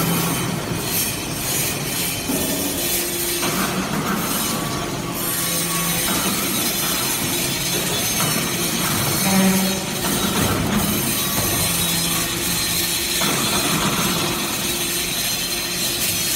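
Vertical hydraulic briquetting press for iron chips running: a steady loud machine noise of hydraulic hum and high hiss. Its note shifts every few seconds and briefly swells about nine and a half seconds in.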